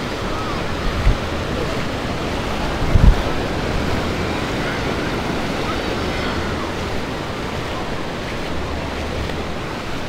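Ocean surf washing on the beach as a steady rush, with wind on the microphone giving two low thumps about one and three seconds in.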